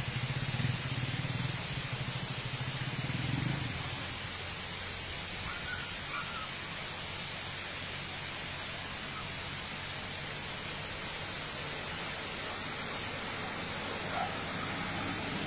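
Steady outdoor hiss under a low vehicle engine hum that fades away about three to four seconds in. Short runs of faint high chirps recur a few times.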